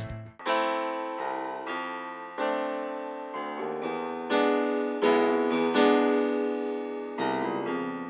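Background music on piano: chords struck about once a second, each ringing and fading before the next.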